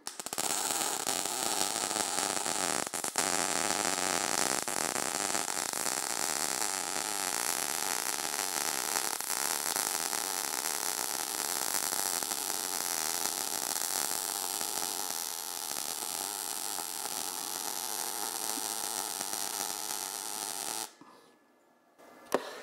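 MIG welding arc running steadily on steel plate, using thin .025-inch ER70S-3 wire under C25 (75% argon, 25% CO2) shielding gas, with a brief break about three seconds in. The arc cuts off about a second and a half before the end.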